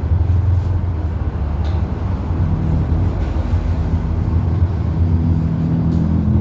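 A loud, steady low hum, with faint held tones joining about two and a half seconds in.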